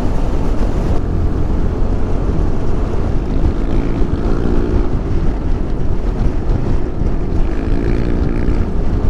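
Motorcycle riding at speed: constant heavy wind rush on the microphone, with an engine note that swells and fades twice.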